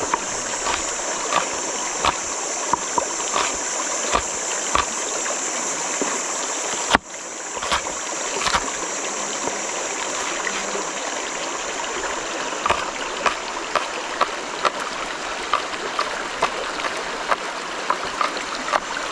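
River water running steadily, with scattered short clicks and taps throughout.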